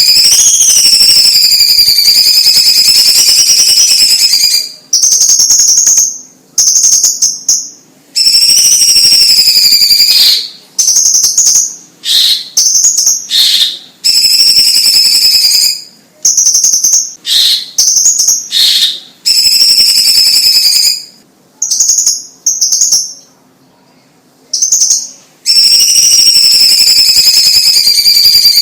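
Cucak ijo cina (cucak cungkok) leafbird singing loudly: long, wavering high whistled phrases alternating with runs of short, clipped notes and brief pauses.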